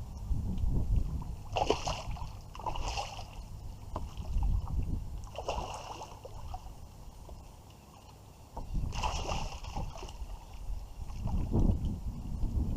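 Water splashing and sloshing around a kayak: several short splashes spread through the clip over a steady low rumble.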